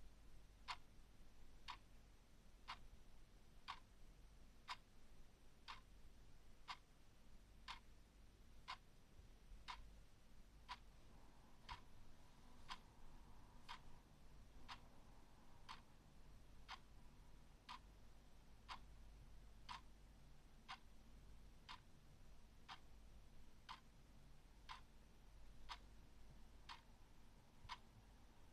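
Clock ticking faintly and evenly, one tick a second.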